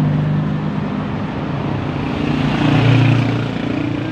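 Large road vehicle, most likely a bus, driving past: engine and tyre noise that swells to its loudest about three seconds in.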